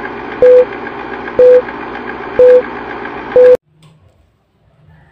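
Film countdown leader sound effect: a short, loud beep once a second, four times, over a steady film-projector whir. It all cuts off suddenly about three and a half seconds in.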